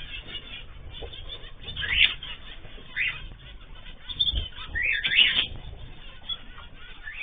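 Pet cage birds calling, several short high calls over a few seconds, with a soft flutter of wings.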